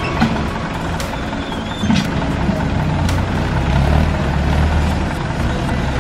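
Landini DT85 4WD tractor's diesel engine running steadily under load as the tractor's front blade pushes a heap of limestone, with a few sharp knocks about one, two and three seconds in.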